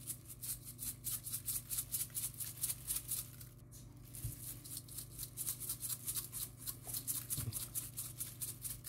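Dry spice rattling in a plastic shaker bottle shaken quickly over a raw chicken, several shakes a second, with a short break about three and a half seconds in.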